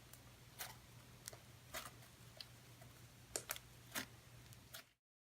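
Faint, irregular clicks and small pops, about seven of them, from homemade fluffy slime being poked and squeezed, over a low steady electrical hum; the sound cuts off sharply near the end.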